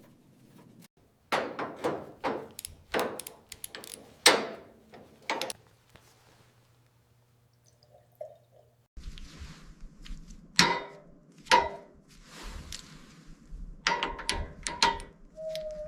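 Irregular knocks and clanks of workshop tool work, like hammering and tools being handled, stopping for a few seconds about six seconds in, then starting again over a low rumble. A short rising squeak comes near the end.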